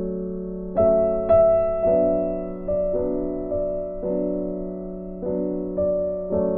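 Background piano music: slow chords, each struck and left to fade.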